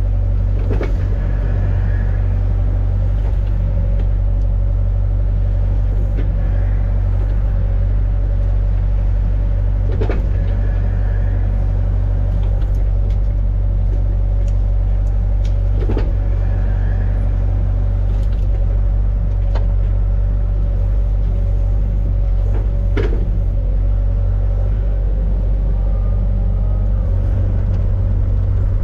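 John Deere 60G mini excavator's diesel engine running steadily, with a low rumble and a steady hum, and three or four sharp knocks spread through as the machine works, each followed briefly by a faint whine.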